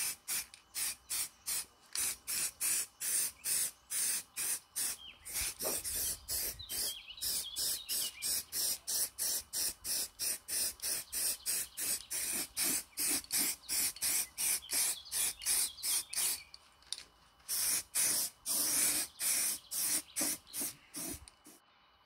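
Aerosol can of heat-resistant stove spray paint hissing in quick short squirts, about three a second, with a brief pause about two-thirds through.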